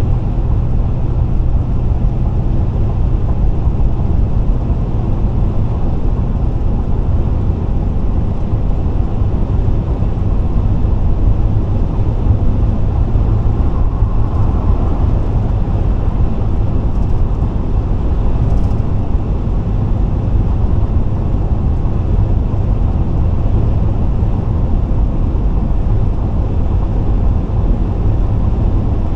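Steady low road rumble of a car cruising at highway speed, heard from inside the cabin.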